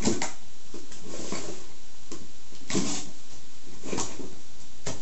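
Box cutter slicing through the packing tape of a cardboard box: about five short scraping cuts, roughly a second apart, the longest a little past the middle.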